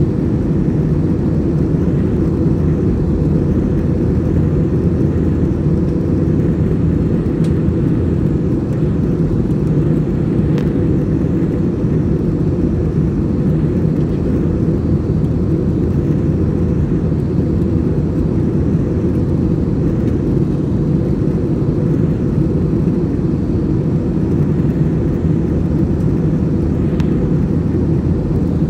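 Airbus A321's IAE V2500 jet engines and rushing airflow heard inside the cabin: a steady, loud, low roar.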